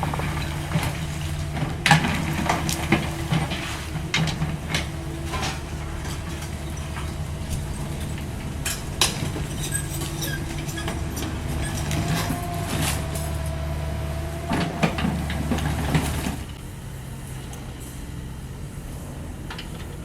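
CAT 305.5E2 mini excavator's diesel engine running under load with a hydraulic whine, over repeated knocks and clattering of broken wall rubble. About sixteen seconds in the knocking stops and the engine drops back to a quieter steady run.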